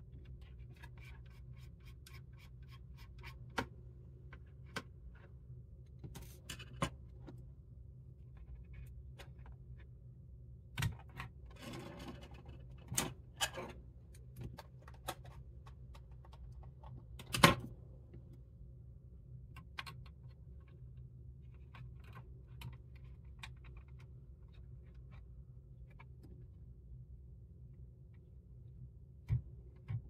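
Scattered small clicks, taps and a brief scrape of hands handling small parts inside an open mini PC as an M.2 SSD is fitted, over a steady low hum. The loudest click comes a little past the middle.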